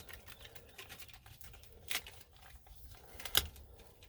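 Duct tape being wrapped around fiberglass packing on a motorcycle exhaust baffle: soft crinkling and rustling, with a couple of sharp clicks about two seconds and three and a half seconds in.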